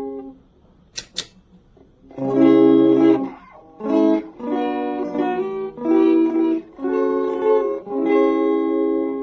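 Electric guitar played through an effects pedal, strumming a sequence of ringing chords, each held from about half a second to a second and a half. A sharp click comes about a second in, before the chords start.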